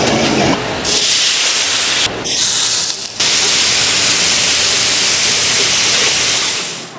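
Loud sizzling hiss of grouper pieces frying in a hot wok. It breaks off briefly a few times in the first three seconds, then runs steadily and fades out just before the end.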